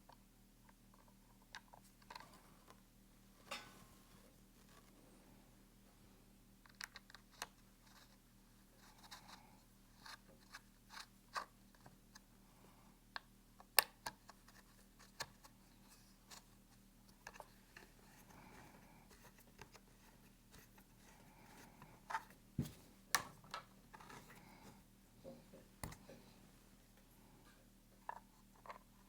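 Scattered small clicks, taps and scrapes of mounting bolts being threaded through a Safariland QLS fork into a duty holster, over a faint steady low hum.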